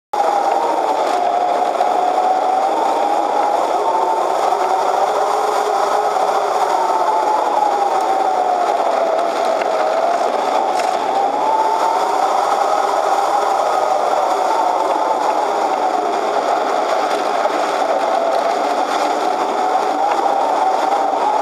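Electric motor and propeller of an Easyglider Pro RC glider whining in flight, picked up by the camera on board. Its pitch wavers slowly up and down over a steady rush.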